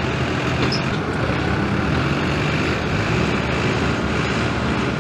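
2006 Dodge Ram diesel pickup's 5.9-litre Cummins inline-six running steadily while the truck sits stopped at the end of a sled pull.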